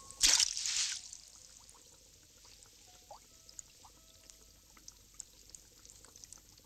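A sudden splash in aquarium water a fraction of a second in, lasting under a second, as a predatory fish strikes at a small fish held at the surface. Afterwards only faint small water plinks and blips.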